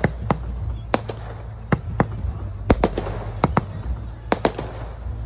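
Aerial fireworks display: shells launching and bursting in a rapid, uneven series of sharp bangs, about three a second, over a steady low rumble.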